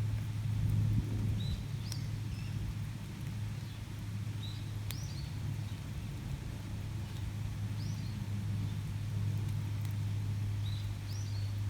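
A small bird repeatedly giving short, high, rising chirps, one or two at a time every second or few, over a steady low hum.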